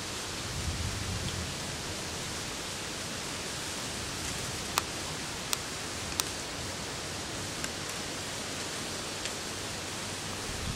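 Steady, even background hiss with no clear source of its own, broken by three short sharp clicks a little under a second apart near the middle and a brief low rumble about a second in.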